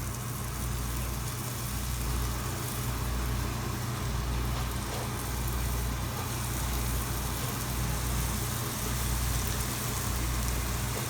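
Jangiri (jalebi) batter frying in hot oil, a steady sizzle, over a low steady hum.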